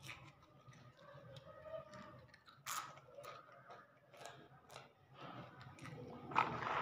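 A child chewing and crunching a snack: small crunches and clicks, with a louder crackle a little under three seconds in and again near the end.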